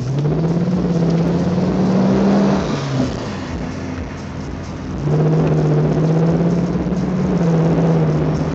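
Audi S8 with a tuned exhaust accelerating twice, heard from a following car: a deep exhaust note climbs for about two and a half seconds, eases off, then climbs again from about five seconds in.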